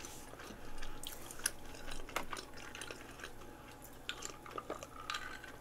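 Quiet eating and drinking: closed-mouth chewing, then sips from a glass of iced drink, with scattered small clicks.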